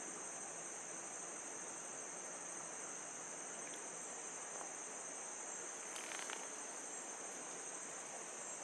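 Steady high-pitched chorus of rainforest insects, with a brief soft click-like sound about six seconds in.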